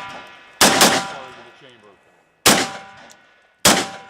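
Rifle shots: a quick pair about half a second in, then single shots near the middle and near the end, each followed by a ringing tone that fades out.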